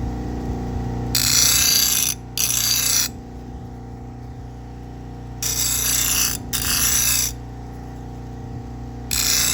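Bucktool bench grinder running steadily at half speed with a paper buffing wheel, as a knife edge is drawn across the wheel in five hissing passes of about a second each, in two pairs and then one near the end: buffing off the burr after sharpening.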